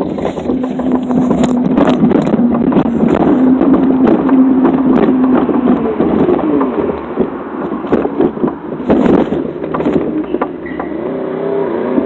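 Phone microphone rubbing and scraping against clothing, with repeated clicks and knocks, over a steady low hum.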